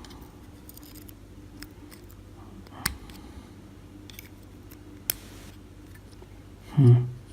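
A few sharp small clicks of metal lock parts and tools being handled on a bench, over a low steady hum, with a louder low bump just before the end.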